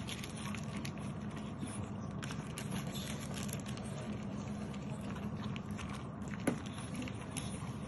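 French bulldog puppies crunching dry kibble from a plastic bowl: a dense run of small crackly crunches and clicks over a steady low hum, with one sharper click about six and a half seconds in.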